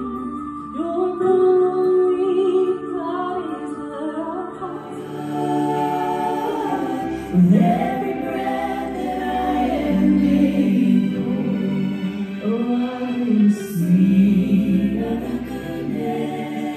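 Three women singing a worship song together into microphones, several voices at once with long held notes.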